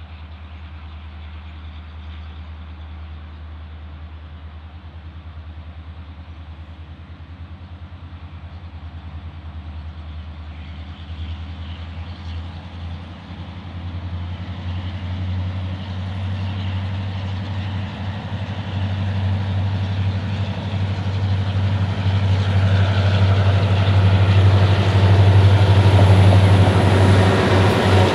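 Diesel locomotive engine drone approaching, a steady low hum that grows steadily louder as the train draws near.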